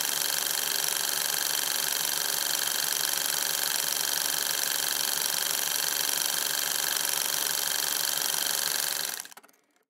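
Steady, even hiss with faint steady tones in it, unchanged throughout, then fading out about nine seconds in.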